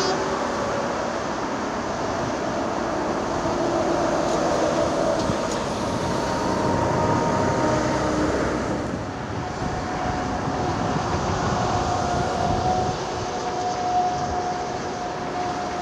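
Hydraulic excavator working: diesel engine running steadily under a thin, shifting hydraulic whine.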